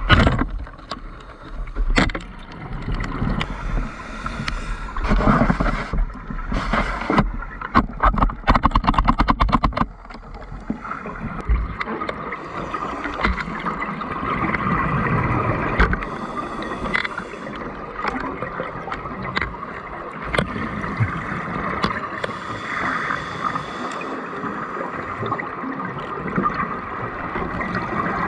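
Scuba diving underwater: bursts of bubbles gurgling from regulator exhalations, with a fast crackle of bubbles about eight seconds in, then a steadier hiss.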